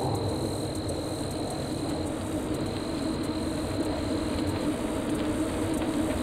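Steady wind rumble and tyre noise from a moving bicycle, heard through wind buffeting the camera's microphone.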